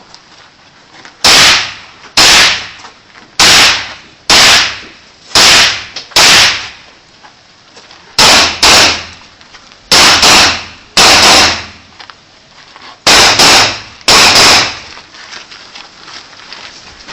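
M1 rifle (Garand) fired semi-automatically as a rapid string of about sixteen loud shots, mostly in pairs, each crack followed by a short echo.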